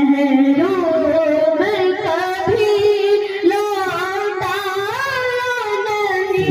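A young male voice singing a naat solo into a microphone, holding long notes that bend and turn in melodic ornaments.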